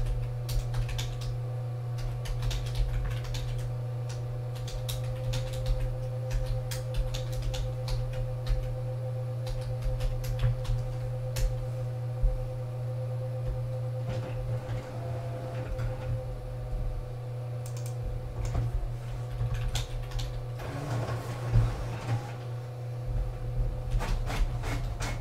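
Computer keyboard typing, irregular clicks of keystrokes in loose runs, over a steady low electrical hum.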